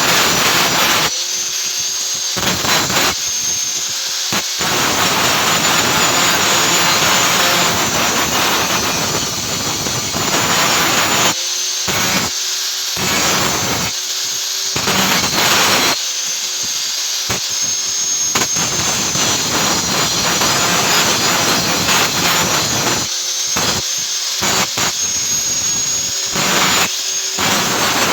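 Angle grinder running with a steady high whine, its disc grinding against steel in long stretches that break off briefly every few seconds as the disc is lifted.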